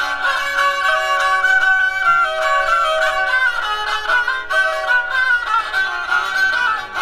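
Instrumental background music: a melody of held notes that step up and down.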